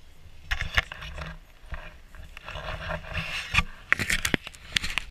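Handling noise on an action camera: a gloved hand and jacket fabric rubbing and scraping against the camera housing, with irregular scratchy bursts and sharp clicks that start about half a second in and grow busier toward the end.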